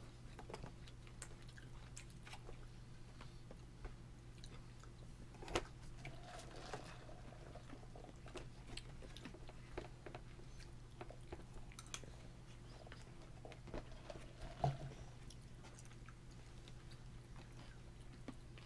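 A toddler chewing and eating, with scattered small clicks and taps, two of them louder, over a steady low hum.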